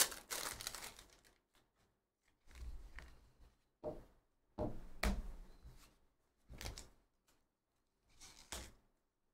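Foil card pack being torn open and crinkled, fading out about a second in. Then the cards rub and slide against each other in several short rustles as they are flipped through by hand.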